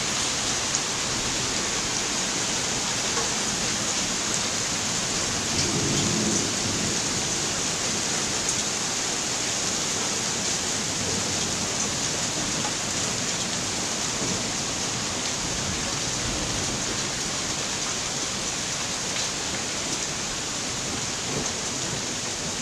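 Hailstorm: hail and rain coming down hard in a steady, dense patter, with a brief low rumble about six seconds in.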